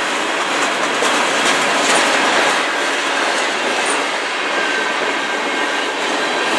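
Freight train cars (tank cars, then covered hoppers) rolling past: steel wheels on the rails making a loud, steady rolling noise with clickety-clack.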